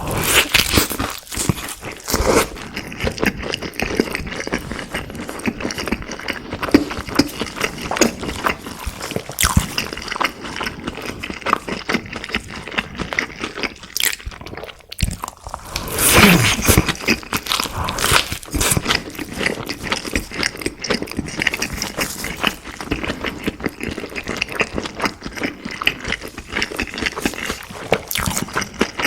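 Close-miked eating: crunchy bites and chewing of fried food, dense crackling crunches throughout, with a louder bite about halfway through.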